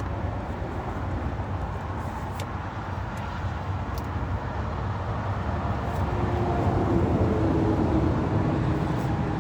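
Steady low rumble of vehicle noise, with a few faint ticks.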